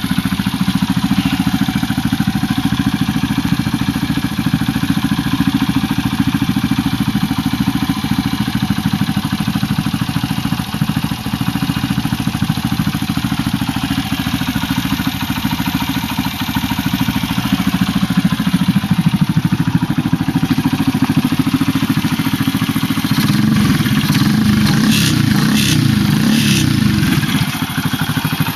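Honda Gorilla Z50J's CD90-based single-cylinder four-stroke engine, bored up to 105cc, idling steadily. Near the end it runs louder for a few seconds, with a few short crackles, before settling back.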